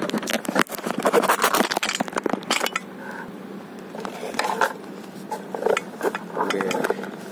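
Handling noise from a camera mount being adjusted: a quick run of clicks, knocks and scraping, most of it in the first three seconds, then scattered softer knocks.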